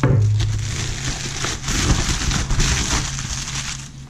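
Plastic padded mailer rustling and crinkling as it is handled and a cardboard product box is pulled out of it, dying down near the end.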